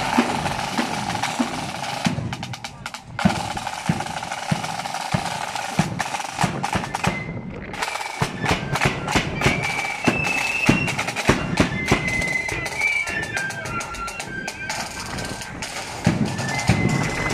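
Marching flute band: side drums rolling and beating with bass drum strokes, then a flute melody coming in over the drums about eight seconds in.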